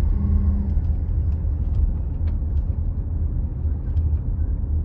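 Steady low rumble of a car's road and engine noise heard from inside the moving cabin, with a few faint ticks.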